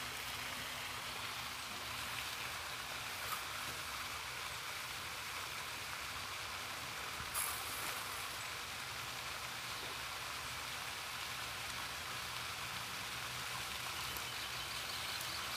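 Steady outdoor background noise: a soft even hiss with a faint low hum underneath, broken by two brief clicks, a small one about three seconds in and a louder one about halfway through.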